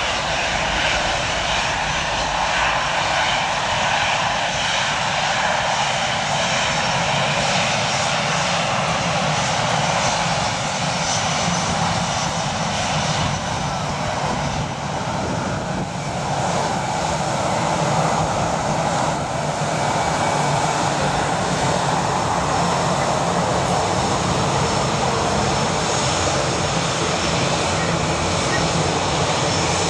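Jet engines of an easyJet Airbus A319 running on the runway: a steady jet noise with a thin high whine above it.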